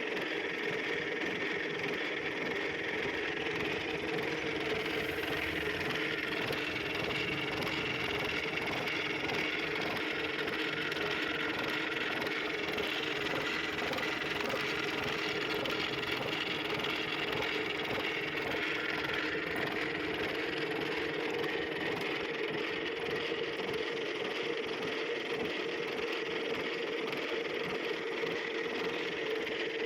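Metalworking machine tool running steadily, a constant hum with a higher whine above it.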